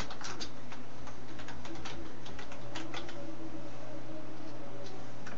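Clicking of a computer keyboard and mouse: a quick, irregular run of clicks in the first three seconds and one more near the end, over a steady low hum.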